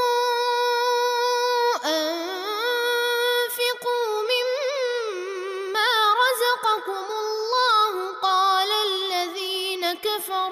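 Male reciter chanting the Quran in a slow, melodic tajweed style, holding long notes with wavering ornaments and gliding pitch, with a brief break about two seconds in.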